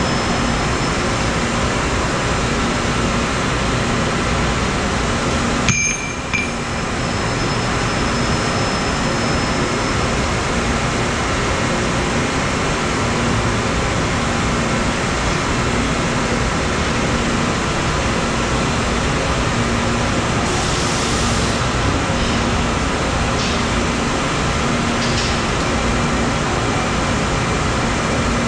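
Steady machine-shop din from CNC lathes and shop machinery running: a continuous noisy hum with a faint steady whine and a low tone pulsing about every second and a half. A sharp clink about six seconds in, and a short hiss around twenty seconds in.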